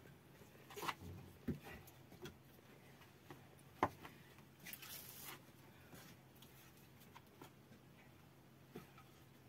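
Dry firewood branches being handled and fed into a clay tandoor oven: scattered light knocks and rustles, with one sharper knock about four seconds in and a brief scraping rustle just after.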